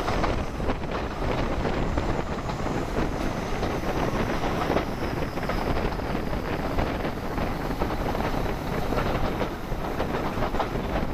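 English Electric 16SVT diesel engine of Class 40 locomotive D335 working hard at full power, heard from a carriage window behind it. Wind buffets the microphone, and the train's wheels run on the rails.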